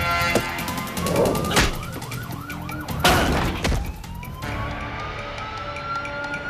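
A siren wailing on the film soundtrack. Its pitch rises slowly, breaks into a quick warbling yelp, then rises again. Two sharp hits cut across it, about a second and a half in and about three seconds in.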